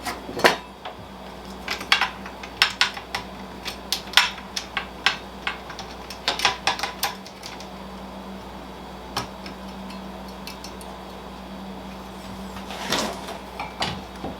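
Irregular clicks, taps and knocks of hard plastic and metal parts being handled and fitted onto an electric hand planer, mostly in the first seven seconds, with a short rustle and a few more clicks near the end. The planer's motor is not running.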